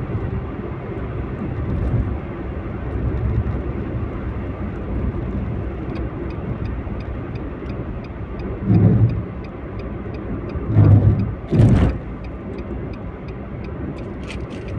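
Road and engine noise heard inside a moving car's cabin, a steady low rumble. From about six seconds in, a light regular ticking, about three a second, runs along with it, and a few short louder bumps come near the middle.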